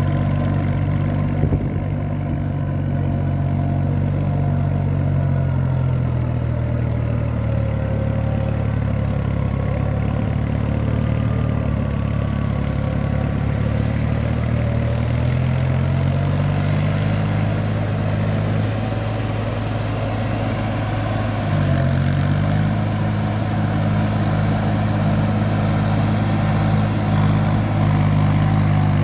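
Farm tractor's diesel engine running steadily under load as it plows a flooded paddy field. Its note wavers a little and dips briefly about three-quarters of the way through before picking up again.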